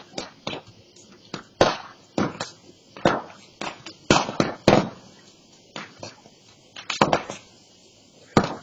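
Burning brush pile crackling and popping: irregular sharp cracks, a few each second, some much louder than others.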